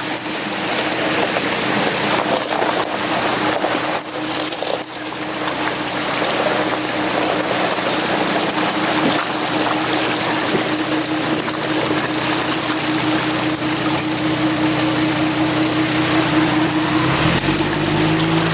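Steady loud rushing hiss with a vehicle engine humming evenly underneath; a second, lower engine note comes in near the end.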